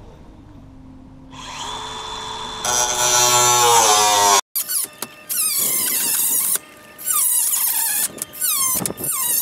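Power tool with a metal cutting wheel spinning up with a rising whine, then cutting through a stack of steel roofing panels. The pitch drops under load, then the cut screeches in loud, wavering, falling shrieks.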